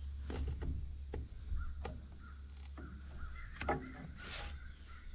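A few scattered light clicks and knocks from hand tools and metal parts being handled, over a steady low hum.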